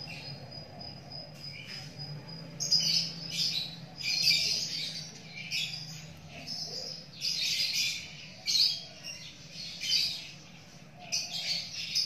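Small birds chirping in short, high bursts about once a second, after a thin steady high tone in the first two or three seconds, with a low steady hum underneath.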